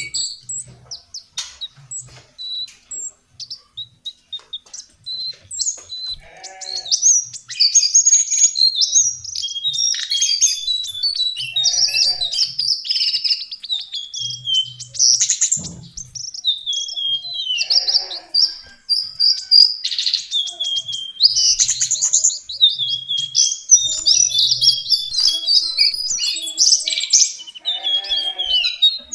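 Lesser shortwing (cingcoang coklat) singing: rapid, high-pitched, jumbled warbling phrases. They are sparse at first and run almost without a break from about six seconds in.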